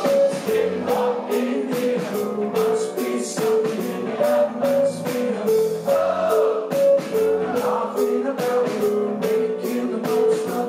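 Live rock band playing: male lead vocal over electric guitars, keyboards and a steady drum beat, with a repeating high melodic riff.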